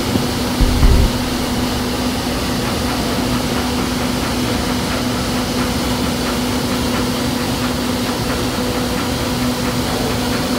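Vertical wind tunnel blowing a steady rush of air with a constant low hum from its fans, while a person floats in the airflow. A few brief low thumps come about a second in.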